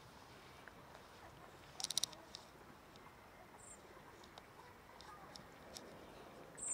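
A cat chewing wet food from a plastic tub: a quick cluster of sharp clicks about two seconds in, then scattered soft ticks. A short high chirp right at the end.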